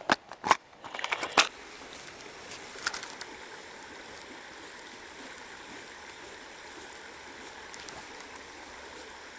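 A few sharp clicks and rustles of handling in the first second and a half, then the steady rushing of a small river's flowing water.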